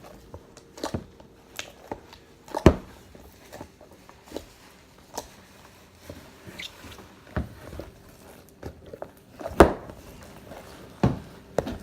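Slime being squished and poked by hand, giving irregular wet clicks and pops, with two louder pops about three seconds in and near the end.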